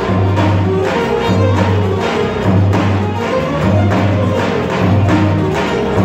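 Live Turkish folk music ensemble playing, with bağlamas and other folk instruments over a steady, evenly spaced drum beat and a deep recurring bass note.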